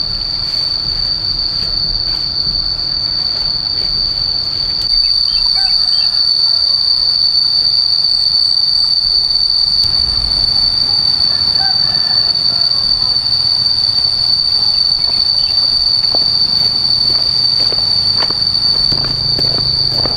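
Insects droning in one steady, unbroken high-pitched note, with a few light knocks near the end.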